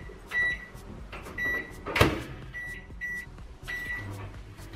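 Combination microwave oven being set: its control panel beeps about five times as buttons are pressed, with one sharp clunk about two seconds in as the loudest sound. Near the end a steady low hum starts as the oven begins running.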